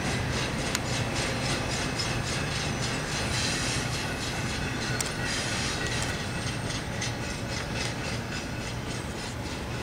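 Train rolling along the track, its steel wheels clicking over rail joints several times a second over a steady rumble, slowly fading.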